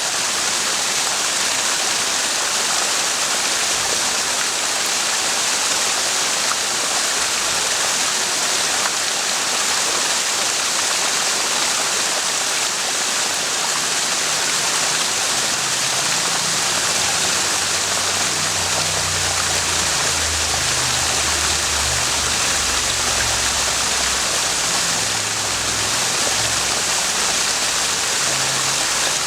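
Mountain spring stream flowing over rocks, a steady rushing and splashing of water. A faint low rumble joins underneath from about halfway.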